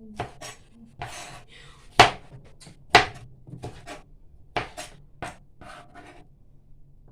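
Kitchen food-prep handling: irregular knocks and clatters of utensils and produce on a cutting board and counter, about a dozen sharp hits of varying loudness with a short rustling stretch about a second in.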